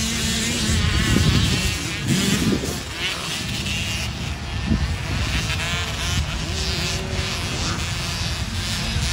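Several small motocross bikes racing on a dirt track, their engines revving high with the pitch rising and falling.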